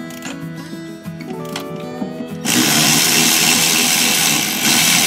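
Background music, then about halfway in a cordless electric ratchet starts running, loud and buzzing, stopping for a moment near the end before running again.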